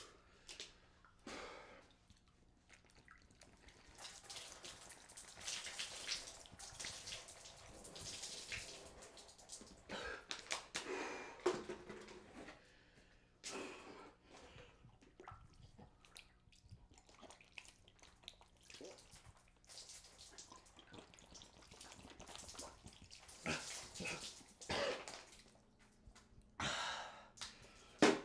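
Water splashing and dripping in several bursts as bottled water spills down a man's sweatshirt and sweatpants, mixed with breathing.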